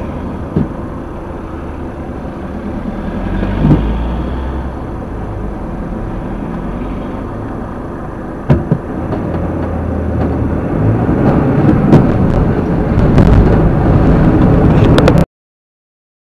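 Car cabin noise picked up by a dashcam microphone: steady engine and road rumble with a few sharp knocks, getting louder over the last few seconds and then cutting off suddenly.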